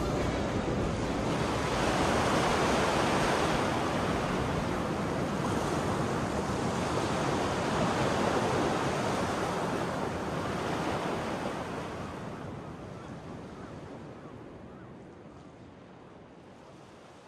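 Wind rushing over the microphone of a camera on a motorcycle at riding speed, a steady rush with no clear engine note, fading out gradually over the last six seconds or so.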